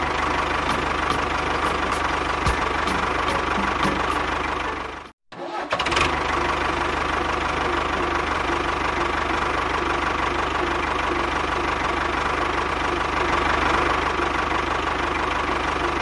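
Tractor engine running steadily, broken by a short gap of silence about five seconds in.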